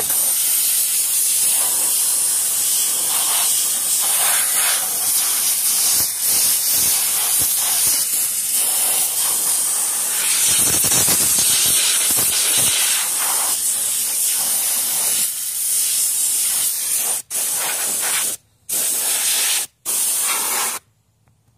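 A pressurized spray hissing steadily while a gas-powered RC truck's chassis is cleaned. Near the end it breaks into a few short bursts, then stops.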